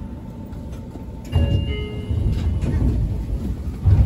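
Smartphone camera being picked up and moved off the train's front window: loud rubbing and bumping on the microphone, starting suddenly about a second in, with a harder bump near the end. A brief set of high steady tones sounds about a second and a half in.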